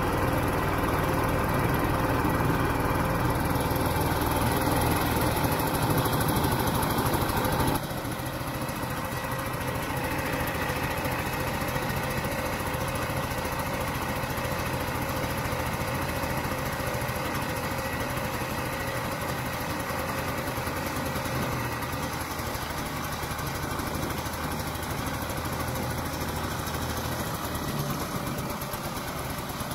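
Vintage Ski-Doo Olympique snowmobile's small two-stroke engine running steadily as the sled travels. About eight seconds in the sound drops abruptly to a quieter, steady engine note.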